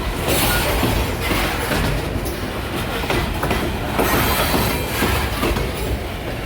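Freight train cars rolling past, a steady rumble with wheels clacking over the rail joints in an uneven run of knocks.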